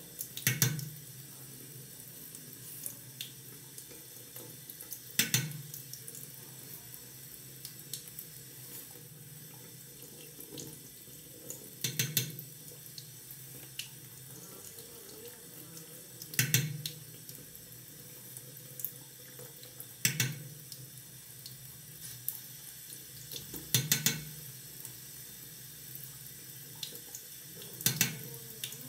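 Tap running steadily into a bathroom sink, with a brief louder noise about every four seconds, seven in all.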